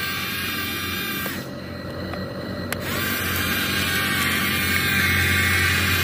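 Yigong toy RC excavator's small electric motors whining steadily as its upper body swings round. The whine drops back for a moment about a second and a half in, then returns louder from about three seconds.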